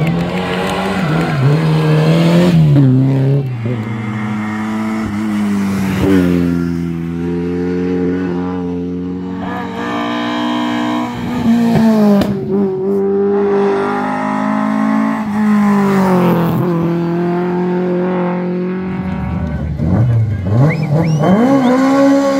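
Lada rally car engines revving hard, the pitch climbing and dropping over and over with gear changes and lifts off the throttle as the cars accelerate and slide past.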